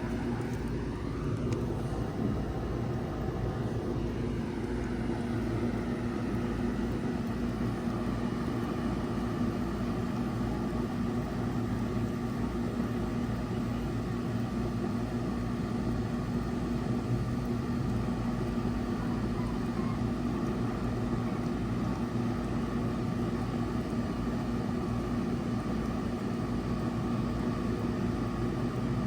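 2021 2-ton Bard wall-hung heat pump running steadily in cooling mode: an even drone of compressor and fan with a low, constant hum.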